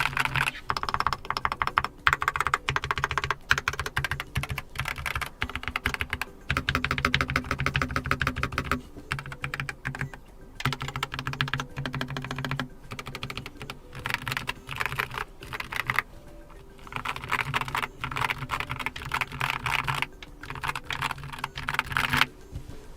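Typing on a Keychron K4 HE keyboard with Nubia linear magnetic (Hall effect) switches: fast runs of keystroke clacks in several bursts, with short pauses between.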